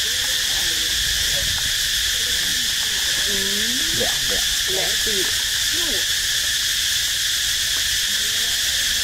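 Steady, high-pitched drone of an insect chorus, unchanging throughout, with faint wavering calls or voices in the background about midway.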